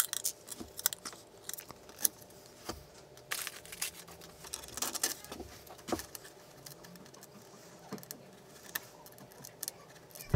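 Scattered small clicks and rustles of hands handling wires and pushing plastic wire connectors into the headers of a 3D printer's control board.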